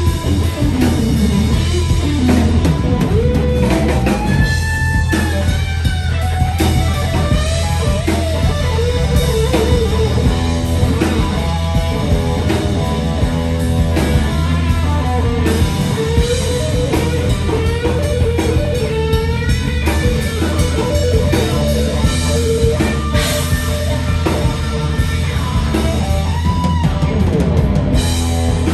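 A live rock band: an electric guitar plays a lead solo of sliding, bent notes over a drum kit and a steady low bass line.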